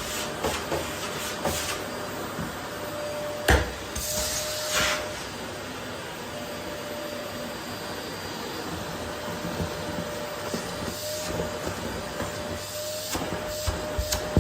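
Vacuum cleaner running steadily on a wooden floor, a faint steady whine over the noise of the suction. One sharp knock comes about three and a half seconds in, then a brief louder hiss, with a few small clicks and taps near the end.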